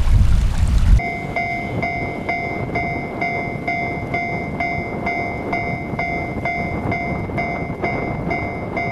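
A loud low rumble for about a second, then an abrupt cut to a railway level-crossing warning bell ringing evenly, about two strikes a second.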